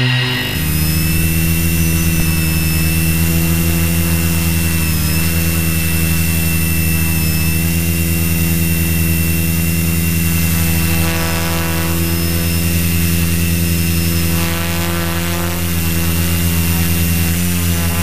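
Small multirotor camera drone's motors and propellers whirring steadily in flight, with a high whine over a low hum. The pitch dips briefly about five seconds in and again near the end as the motors change speed.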